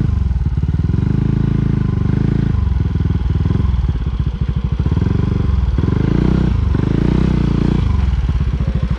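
Honda ADV350 scooter's single-cylinder engine running at low speed under changing throttle, its pitch rising and falling in several surges as it labours over a rough, steep dirt track.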